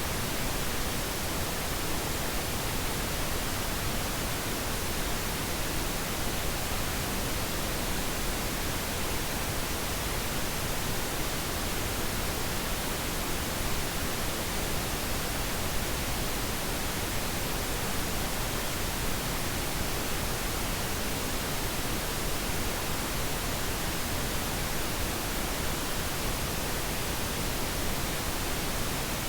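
Steady pink noise: an even, unchanging hiss spread across the whole range, with no breaks or events.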